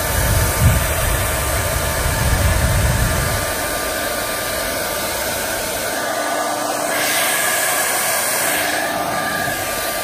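Soocas H3S hair dryer running with its concentrator nozzle fitted: a steady rush of air with a faint high motor whine, and a low rumble for the first three seconds or so. The hiss grows brighter about seven seconds in.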